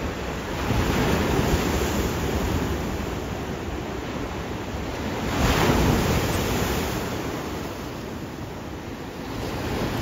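Pacific Ocean surf breaking and washing over shoreline rocks. One surge comes in about a second in, a louder one about halfway through, and a third builds near the end.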